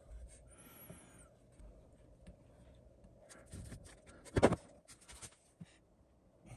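Quiet handling sounds of gluing up a pine finger joint: wood glue squeezed from a plastic bottle, light clicks and rustles of the boards being shifted, and one sharp wooden knock a little over four seconds in as the joint is pushed together.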